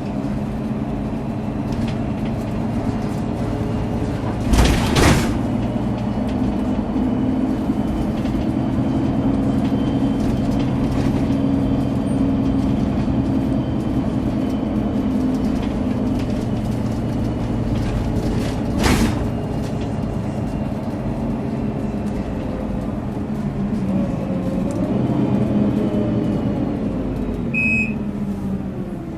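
Mercedes-Benz O530G Citaro articulated bus engine running under way, with a turbo whistle that rises and then falls near the end. Two short, loud hisses break in, about five seconds in and again near the middle, and there is a short beep near the end.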